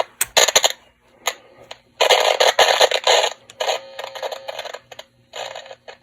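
Scratchy, crackling playback noise from a vintage Dictaphone player, coming in irregular bursts with sharp clicks over a faint steady electrical hum.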